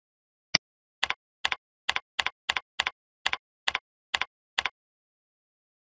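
A single mouse click, then about ten computer keyboard keystrokes at a steady typing pace as a short word is typed, each keystroke a quick double tick of key press and release.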